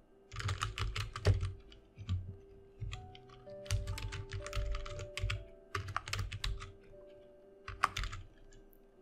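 Typing on a computer keyboard: several runs of quick keystrokes with short pauses between them, over soft background music with held notes.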